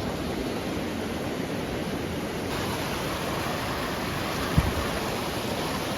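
Snowmelt-swollen mountain river rushing steadily, with one soft low thump about four and a half seconds in.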